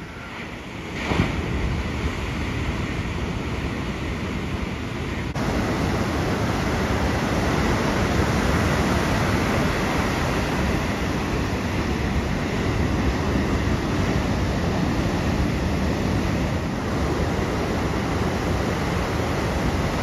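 Ocean surf: a steady wash of breaking waves, with wind buffeting the microphone. There is a short louder burst about a second in, and the sound shifts abruptly about five seconds in.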